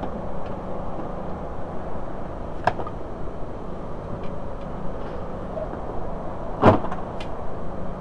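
Knocks and snaps as a stuck regulator panel is worked loose from a VW New Beetle door: a light knock a little before halfway, a sharper, louder one about two-thirds through, then a couple of small clicks, over a steady background hum.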